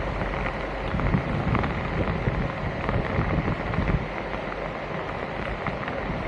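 Wind buffeting the microphone in uneven low gusts over a steady rushing noise, with scattered small clicks.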